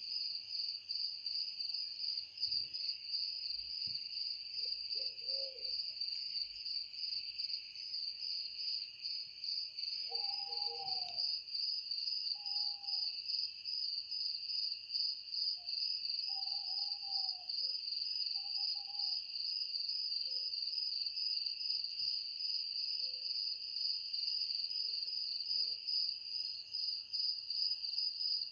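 Steady, high, finely pulsing insect chorus, with a few short, low calls in the background about a third of the way in and again just past the middle.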